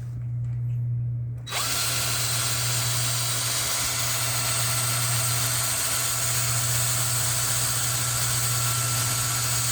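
Small electric drill running steadily as it drills out the rear rivet on a Hot Wheels die-cast car's base. A low hum is there throughout, and about a second and a half in it is joined by a loud, steady high whine and hiss.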